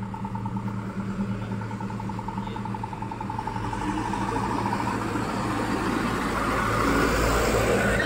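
Diesel trucks rolling slowly past in a convoy over a steady low hum. A steady high tone sounds through the first half. From about halfway, engine and tyre noise grows louder as a truck pulls up close, loudest near the end.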